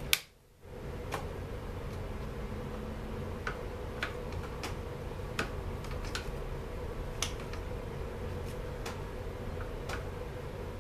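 Irregular sharp clicks and ticks of a hand tool and small parts on a Stihl MS 250 chainsaw as it is worked on by hand, a loud one right at the start, over a steady low hum.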